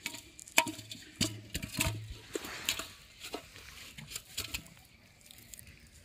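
Water splashing and slapping in an aluminium pot holding caught fish, with sharp knocks against the metal. A dense run of splashes and knocks over the first three seconds gives way to a few scattered ones that die away.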